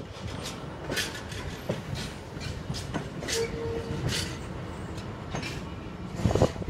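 Empty coal hopper wagons rolling past slowly, their wheels clicking and knocking over the rail joints in an irregular rhythm. There is a short squealing tone about halfway, and a heavier clatter near the end.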